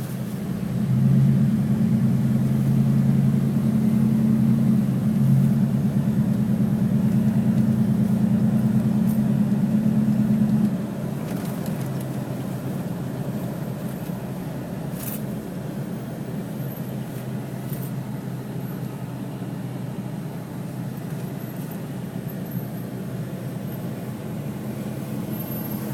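Motor vehicle running with a steady low engine hum and road noise, louder for the first ten seconds or so, then dropping to a quieter steady level.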